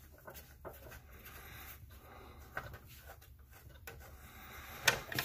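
Faint rubbing and small clicks of fingers turning a screw out of the plastic side door of an Inland DB-100 diamond bandsaw, with a sharper knock near the end.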